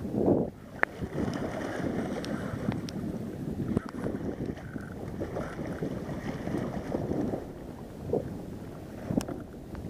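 Sevengill shark thrashing at the surface beside a kayak, with churning, splashing water, loudest right at the start, and wind buffeting the microphone.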